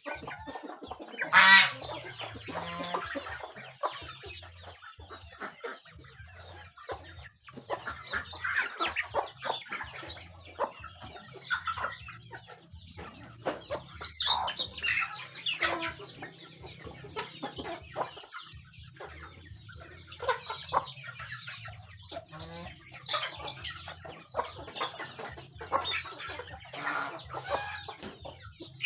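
A flock of chickens clucking in short, scattered calls as they peck and feed, with a loud call about a second and a half in.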